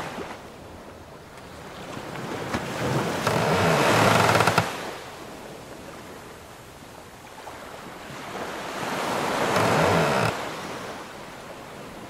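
Sea waves washing against a wooden sailing ship in two slow swells, each building over a couple of seconds and then dropping away sharply. Low creaking of the ship's timbers comes at the peak of each swell.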